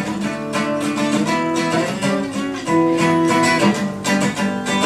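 Acoustic guitar strumming chords in a steady rhythm, an instrumental passage between sung lines of a song.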